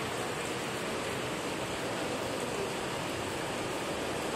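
Heavy storm rain falling, a steady, even hiss of downpour.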